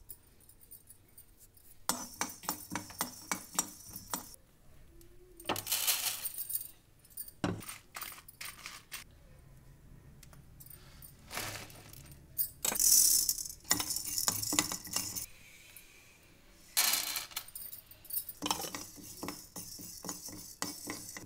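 Steel spoon stirring and scraping seeds dry-roasting in a pan: several bursts of quick clinks and scrapes with quieter gaps between.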